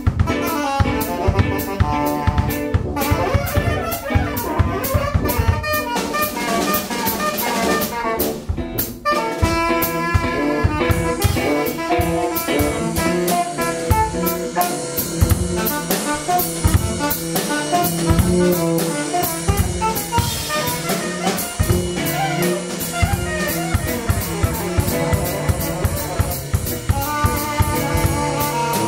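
Live instrumental band playing: tenor saxophone over a drum kit, tuba and electric guitar, with dense drumming throughout.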